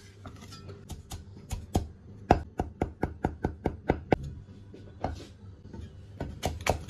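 Chinese cleaver chopping ginger into fine mince on a thick wooden chopping block: a run of sharp, irregular knocks, a few per second.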